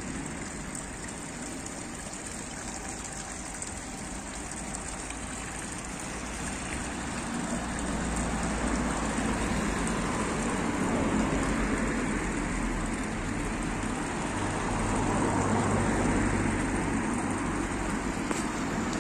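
Water pouring from a stone fountain's spout into its basin, a steady splashing, with a low rumble underneath that grows somewhat louder in the second half.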